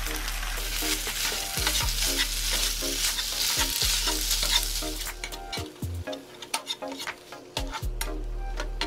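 Ground turkey and chopped onion sizzling in a nonstick skillet while a plastic slotted spatula chops and stirs the meat, tapping and scraping against the pan. The sizzle drops off sharply about five seconds in, leaving mostly the spatula's clicks and scrapes.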